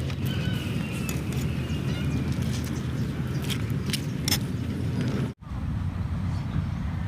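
A steady low rumble like a motor running, with a few faint chirps and clicks over it; the sound drops out for an instant about five seconds in.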